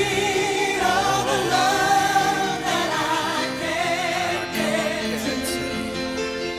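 A song playing: a singer's wavering, ornamented melody line over steady held backing chords.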